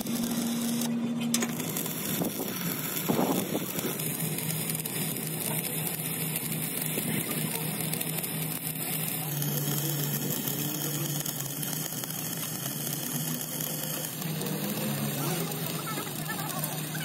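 Stick (arc) welding on the steel plate of an excavator bucket: the arc crackles steadily as a bead is run, over a low steady hum.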